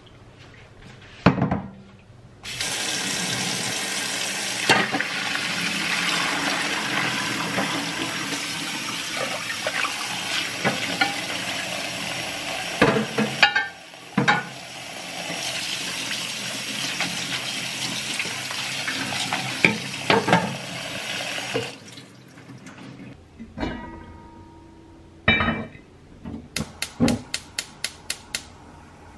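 Kitchen tap running a steady stream of water over drained spaghetti in an enamel colander in a stainless steel sink, with a few knocks and a short break partway through. The water stops about two-thirds of the way in, followed by light clatter and a quick, even run of sharp clicks near the end.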